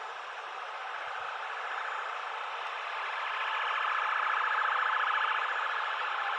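Boeing 787 Dreamliner's jet engines at take-off power: a steady roar with a whine that swells about three seconds in as the airliner passes, its pitch shifting with the Doppler effect.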